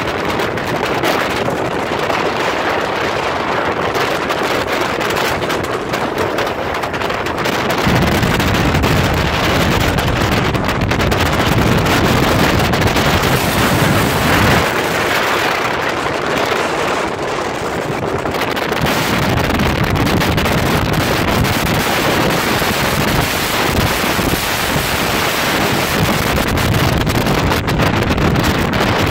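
Wind buffeting the microphone and water rushing past the hull of a small open motorboat under way. A heavy low wind rumble comes in about eight seconds in, eases off briefly around the middle, then returns.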